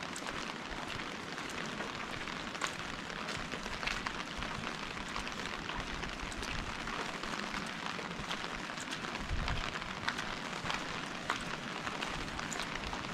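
Steady rain falling, an even hiss with many scattered sharp taps of drops landing close by. A brief low rumble comes about nine seconds in.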